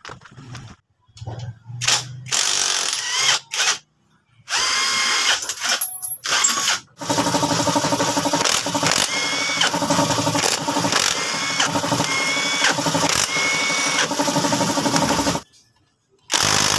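Cordless impact wrench running in several short bursts, then in one long run whose pitch keeps climbing and dropping every second or so, and one more short burst near the end, as it loosens bolts on a motorcycle engine.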